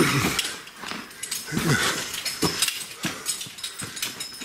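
A man breathing hard and grunting as he climbs a steep slope of loose rock. Several short vocal grunts are mixed with stones crunching and clicking under his feet and hands.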